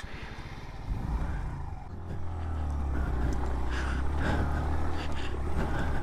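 Suzuki Van Van 125's small single-cylinder four-stroke engine running under throttle as the motorcycle rides up a rocky track, getting louder about two seconds in, with a few knocks and rattles over the loose stones.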